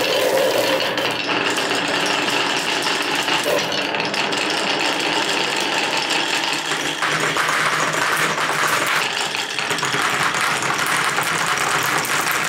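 Dozens of glass marbles rolling together down grooved wooden Cuboro marble-run tracks, a dense, steady clatter of clicks as they knock against the wood and each other and drop into a wooden basin.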